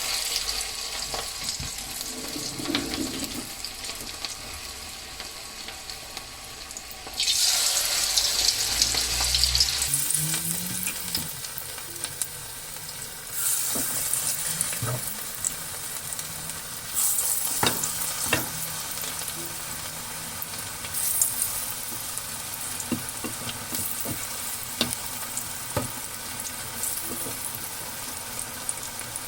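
Onion pakora batter frying in hot oil: a steady sizzle that surges sharply about four times, about seven, thirteen, seventeen and twenty-one seconds in, as fresh portions of batter are dropped into the pan, with a few light clicks.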